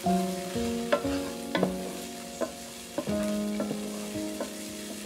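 Mixed frozen vegetables and garlic sizzling in oil in a nonstick frying pan while a wooden spatula stirs them. The spatula scrapes and taps against the pan several times.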